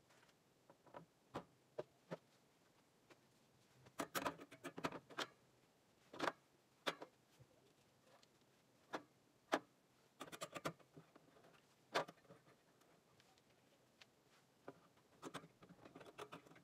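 Metal sockets clicking and clinking as they are handled and pressed onto socket rails in a steel tool box: light irregular clicks, some alone and some in quick clusters.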